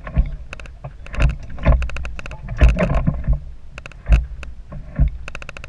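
Fishing reel's line-out clicker ratcheting in quick bursts of sharp ticks as a catfish takes line off a rod in its holder: a strike. Low thumps come with several of the bursts.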